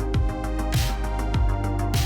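Background music with a steady electronic beat: a kick drum about twice a second under sustained synth notes.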